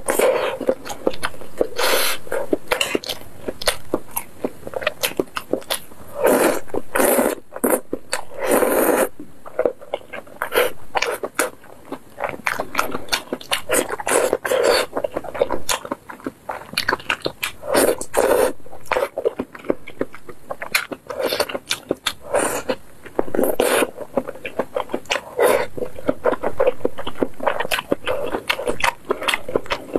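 Close-miked eating sounds: a person slurping noodles and spicy broth and chewing, with rapid wet mouth clicks and smacks throughout and a louder slurp every few seconds.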